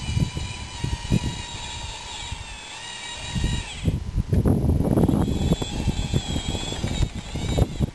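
A radio-controlled model bulldozer's motors and gearboxes whining, the pitch dipping and cutting out about four seconds in before picking up again, over the crunching and clatter of gravel under its tracks and blade. The gravel noise is loudest just after the whine drops out.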